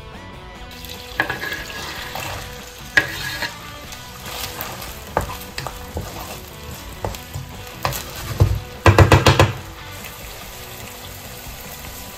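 Chopped onion sizzling in melted butter in a non-stick frying pan while a wooden spatula stirs it, scraping and knocking against the pan now and then. About nine seconds in comes a quick run of about six loud knocks.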